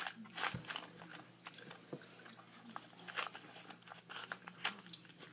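A person chewing a jelly bean, faint and close up, with scattered small clicks and soft crunches from the mouth.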